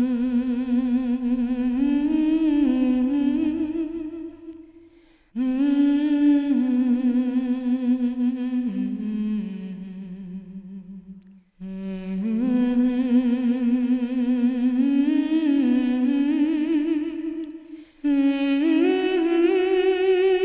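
A lone voice humming a slow melody without accompaniment, in long held notes with vibrato. The phrases break off briefly about five seconds in, at about eleven and a half seconds, and again near eighteen seconds.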